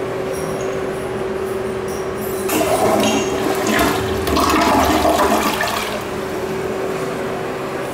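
Toto Drake gravity-flush toilet flushing: a rush of water starts about two and a half seconds in, is loudest around four to five seconds, and dies down about six seconds in. A steady hum runs underneath throughout.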